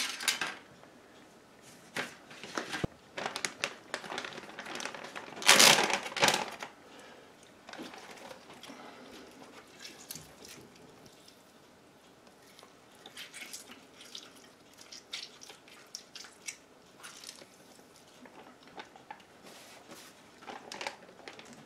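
Limes being cut and squeezed with a metal hand citrus press over a plastic zip-top bag: scattered clicks, knocks and plastic rustling, with the loudest rustle about six seconds in.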